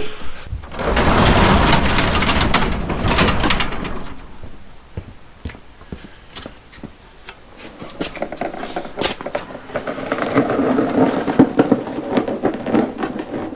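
Wheels of a dolly carrying a Ford 5.0L V8 engine, rattling and rumbling as it is rolled across the floor. There is a loud stretch of rolling early on, scattered clicks and knocks in the middle, and a second stretch of rolling rattle near the end.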